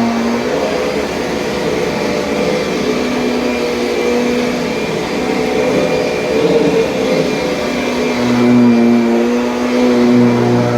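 2007 Kirby Sentria upright vacuum cleaner running steadily, its motor hum wavering a little in tone from moment to moment.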